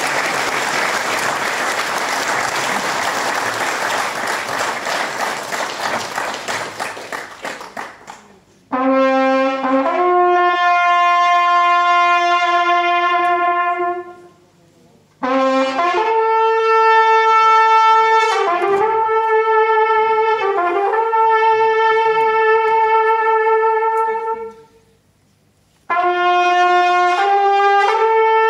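Applause that fades out over about eight seconds, then a solo trumpet playing slow, long-held notes in three phrases with short pauses between them.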